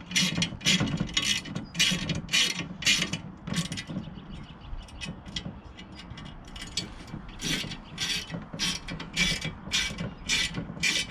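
Hand ratchet with a 9 mm socket tightening nuts on bolts, its pawl clicking in short bursts on each back-swing, about two a second, with a sparser stretch in the middle.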